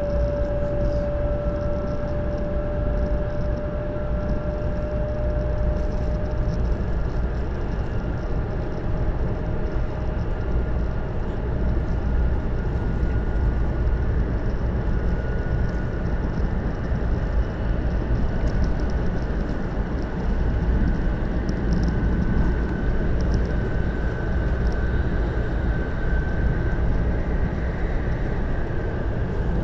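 Running noise inside a 500 series Shinkansen: a steady rumble of wheels, track and air, with a faint motor whine that slowly rises in pitch as the train gathers speed. A steadier tone fades out in the first few seconds.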